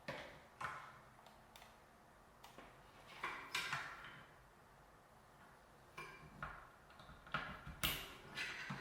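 Scattered clicks, taps and short scrapes of small computer parts and case panels being handled and fitted during a mini PC build, the loudest near the end.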